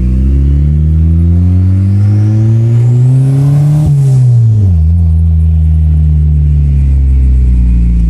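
Turbocharged Honda Accord engine pulling under acceleration, its pitch climbing with a rising turbo whistle over it. About four seconds in there is a sharp click, the whistle stops, and the revs fall off, then settle to a steady lower drone.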